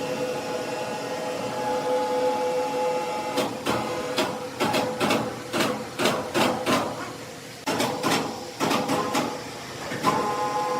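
Sawmill machinery running with a steady hum, then a run of about a dozen sharp, irregular knocks and clanks lasting roughly six seconds, and the hum comes back near the end.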